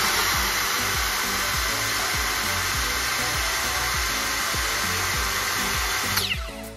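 A HiKOKI corded power tool's electric motor running steadily with no load, cutting off about six seconds in.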